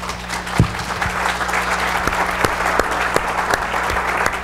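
Audience applauding: the clapping swells over the first second, then holds steady. There is a single thump about half a second in, and a faint low hum runs underneath.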